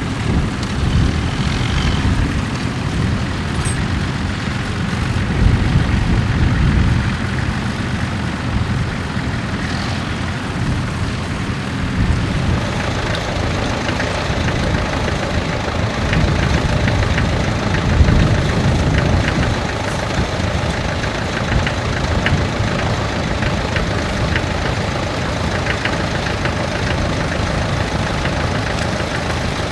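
Tractor engine running steadily with a low rumble, the sound growing fuller about twelve seconds in.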